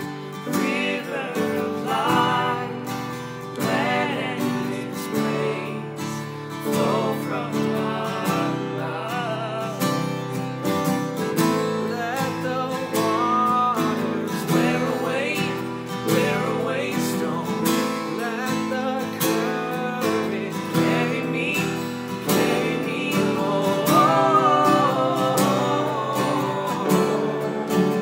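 Worship song: several voices singing together over strummed acoustic guitar and piano.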